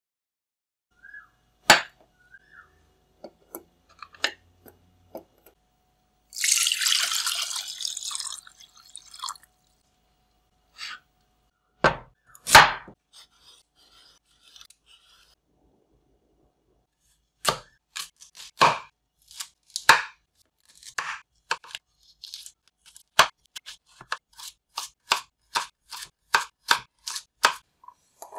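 Food-prep sounds on a wooden cutting board. A few scattered knocks, then a couple of seconds of running water, faint scraping of a peeler on a carrot, and from about two-thirds of the way in a knife chopping carrot on the board in sharp strokes that quicken toward the end.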